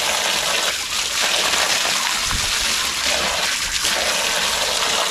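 Spring water gushing from a pipe spout at high pressure and splashing steadily onto wet rock.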